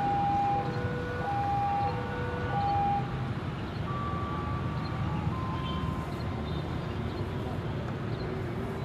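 Steady low vehicle rumble with an electronic two-tone signal, the two tones taking turns about every half second. The signal stops about three seconds in, and fainter steady tones follow.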